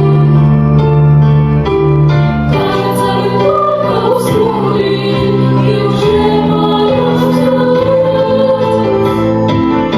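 A song from a stage musical: voices singing over an accompaniment of long held chords, the sung melody coming in about three seconds in.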